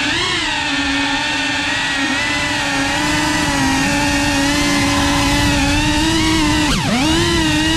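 FPV racing quadcopter's brushless motors and propellers whining steadily, the pitch wavering as the throttle shifts, with a quick sharp dip in pitch and back up about seven seconds in.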